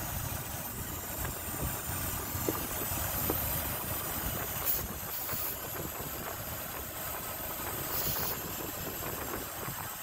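Car engine idling with a vacuum leak at an open brake booster hose, while an aerosol can of starter fluid is sprayed at the leak in short hissing bursts around the middle and again about eight seconds in. The idle rises slightly as the fluid is sucked in, the sign that the leak has been found.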